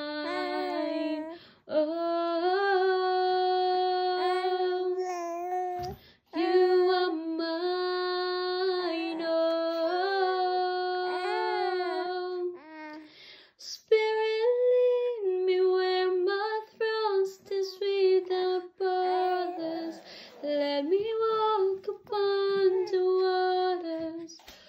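A sleepy baby making long, drawn-out humming vocal sounds, holding each steady note for several seconds with short breaths between, as if singing along.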